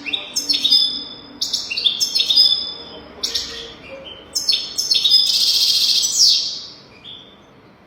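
European goldfinch singing a fast run of twittering, sliding high notes, with a dense buzzy trill about five seconds in.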